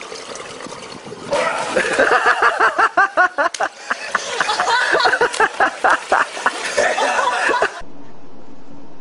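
People laughing hard in rapid repeated bursts, starting about a second in. Near the end it cuts off abruptly and gives way to a steady low hum.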